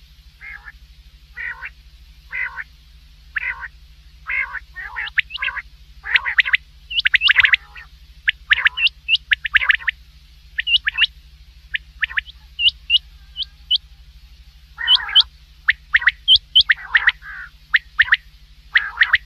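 Common quail calls, repeated in quick clusters of short, sharp notes, with lower, softer calls between them. A steady low electrical hum runs underneath.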